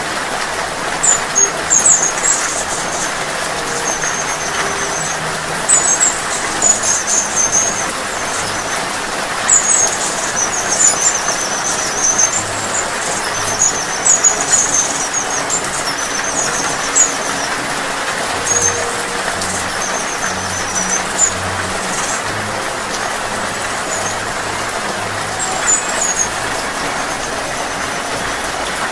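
Steady rain falling, with a hummingbird's very high, thin squeaky chirps in short twittering runs every second or two, fading out near the end.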